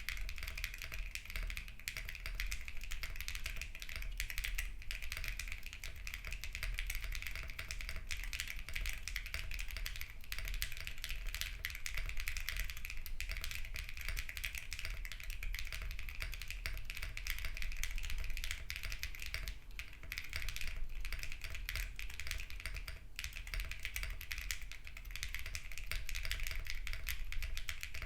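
Continuous typing on a custom 60% mechanical keyboard: a Vertex Arc60 in HHKB layout with a polypropylene plate, no foam, and lubed Sarokeys BCP linear switches under Shenpo keycaps. It makes a dense stream of clean, sharp, high-pitched clacks with a few short pauses.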